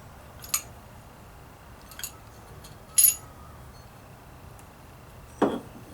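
Sharp metallic clinks, four of them spaced about a second apart, as pliers knock against the metal parts of a Stihl 090 chainsaw while its clutch is being worked off.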